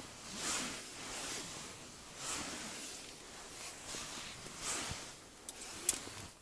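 Close rustling of clothing and gloved hands moving, in soft swells about once a second, with two small sharp clicks near the end.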